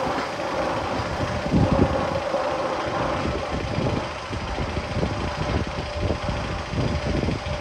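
Steady mechanical rumble with a constant hum and irregular knocks and clatters, heard in the tunnel of the Magnum XL-200 roller coaster.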